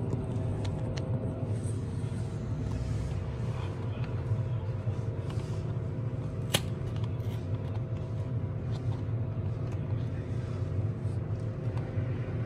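Steady low mechanical hum with a few light clicks and taps; one sharper click about six and a half seconds in.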